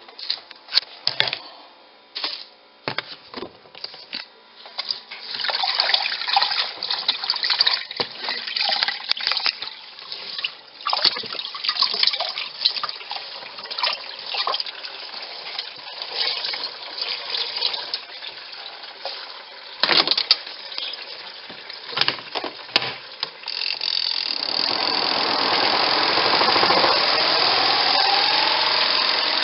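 Wet laundry being handled in a twin-tub portable washing machine, with irregular knocks and splashy rustling. About 24 seconds in, the spin dryer starts: a steady rushing noise with a motor whine that rises in pitch as the basket speeds up.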